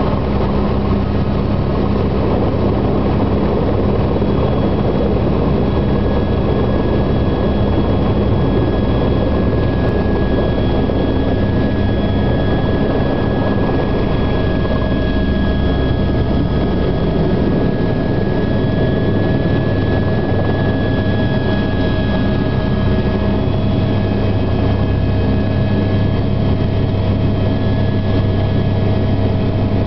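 Helicopter lifting off and flying, heard from aboard: a loud, even drone of rotor and turbine with a steady high whine. The low drone grows stronger about halfway through.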